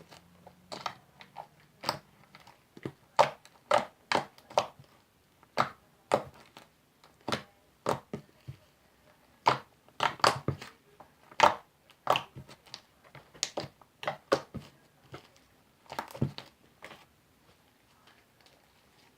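Sticky glue-based soap slime being poked and folded by hand, giving irregular sharp clicks and pops about one or two a second, which stop near the end.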